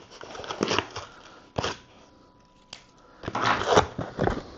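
Plastic bags and packaging crinkling and rustling as they are handled, with a few sharp clicks and a louder burst of crinkling about three and a half seconds in.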